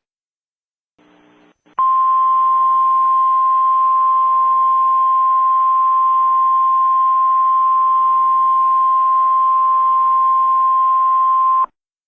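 Emergency Alert System attention tone: one steady beep near 1 kHz over a hiss of static. It starts about two seconds in after a brief burst of static, lasts about ten seconds, and cuts off suddenly near the end.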